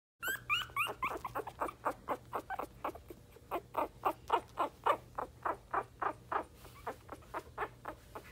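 Young puppy crying in a quick run of short, high squeaks, about three a second, the first few higher and rising in pitch.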